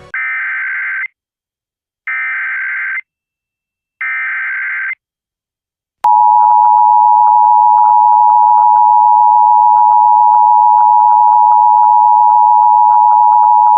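Emergency Alert System tones: three one-second bursts of SAME header data, two seconds apart, then after a short gap the steady two-tone EAS attention signal, held for about eight seconds.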